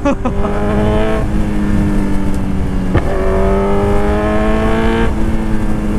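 Kawasaki Z900's stage-2-tuned inline-four accelerating hard, the revs climbing twice. The first rising whine lasts about a second. After a sharp click near three seconds comes a second, slower climb that cuts off a little after five seconds.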